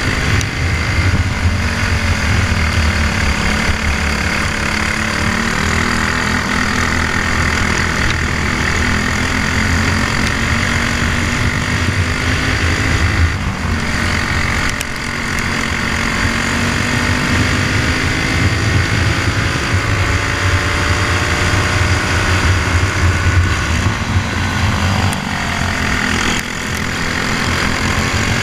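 Onboard sound of a Briggs and Stratton Animal single-cylinder four-stroke kart engine under race load, its revs climbing along the straights and dropping back into the corners. The level briefly dips about halfway through and again near the end.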